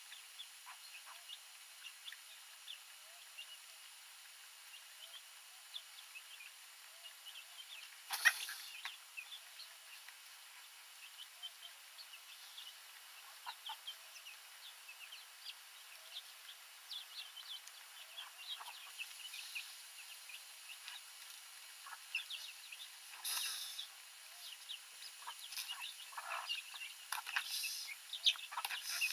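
Chickens clucking and calling faintly, with many short high calls and a few louder calls about eight seconds in and again near the end.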